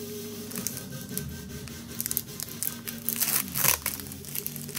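Foil Pokémon booster pack wrapper crinkling and being torn open, over steady background music.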